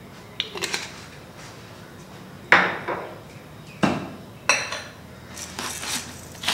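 A few sharp knocks and clinks of kitchenware set down on a counter, the loudest about two and a half seconds in and again near four seconds. Near the end a pepper mill starts grinding in quick rasping twists.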